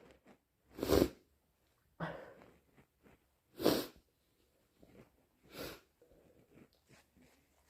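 A person's short, breathy nasal sniffs amid induced hay-fever sneezing: four quick snuffles, the first about a second in and the last near the end, the first and third the loudest.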